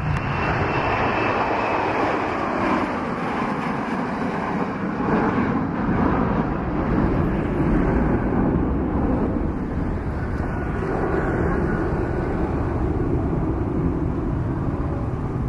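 Boeing 737-800 jet's CFM56 turbofan engines roaring at takeoff thrust as the plane lifts off and climbs out; the sustained roar deepens in tone after the first few seconds.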